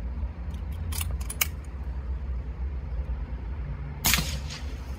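A pre-charged pneumatic air rifle fires a single shot about four seconds in, a sharp crack with a short tail. A few light clicks come about a second in, over a steady low rumble.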